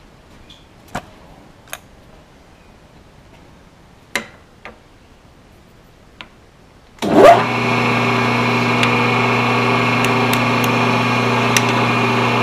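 A few sharp clicks, then about seven seconds in the Grizzly vertical mill's spindle motor switches on and comes up to a steady hum with a high whine, the end mill spinning before it is plunged into the aluminium piston.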